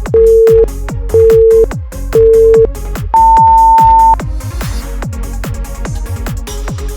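Workout interval timer counting down: three short beeps a second apart, then one longer, higher beep marking the switch between work and rest. The beeps sit over electronic dance music with a steady beat.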